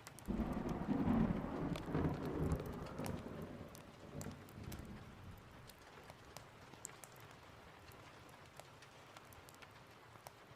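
A thunder rumble breaks in suddenly just after the start, rolls for a few seconds and fades out by about halfway through, over steady rain. Faint sharp crackles are scattered throughout, like a fireplace.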